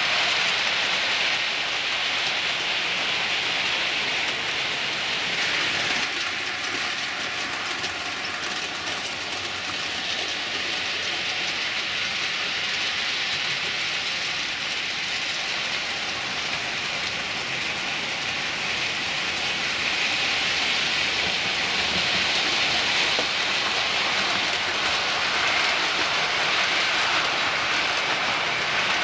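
Model railway locomotive running along the layout track: a steady whirring hiss of motor and wheels on the rails, with a faint hum from the motor about six seconds in.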